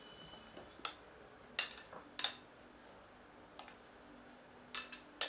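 Spatula tapping and scraping against a glass mixing bowl while whipped cream is scooped out: a handful of short, sharp clicks spaced irregularly, a second or so apart.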